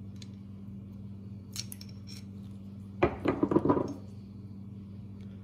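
Small metal carburetor parts clicking, then clinking and clattering loudly for about a second about three seconds in, as the pump cover is pried off a chainsaw carburetor and handled. A steady low hum runs underneath.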